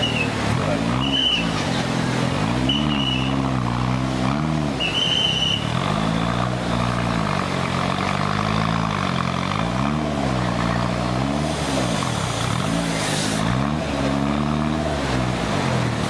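Modified off-road 4x4 competition truck's engine revving up and down over and over as it claws up a steep muddy bank.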